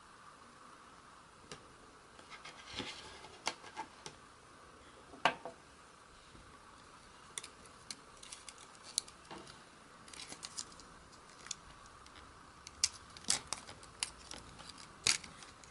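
Scattered small clicks and taps of plastic dashcam parts being handled and pried apart as the display is taken off. One sharper click comes about five seconds in, and a cluster of clicks comes near the end.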